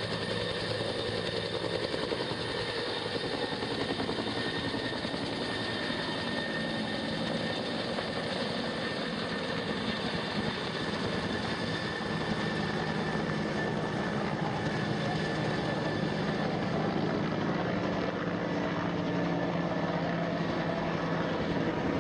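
Firefighting helicopter running steadily: a continuous rotor and engine sound with a low hum and a thin steady whine above it.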